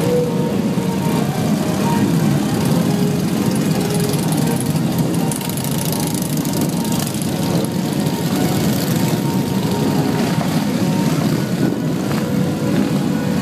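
A large group of motorcycles, mostly cruisers and touring bikes, running together at idle and low speed as they move off in a slow line. It is a steady, dense engine drone.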